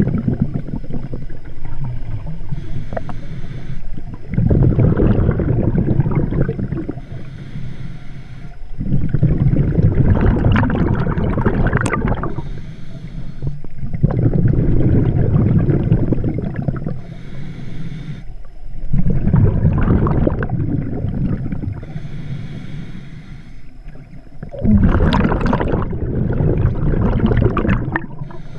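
Underwater breathing through a scuba regulator: rushing, rumbling bursts of exhaled bubbles, six in all, each lasting two to three seconds and coming about every five seconds, with quieter gaps between.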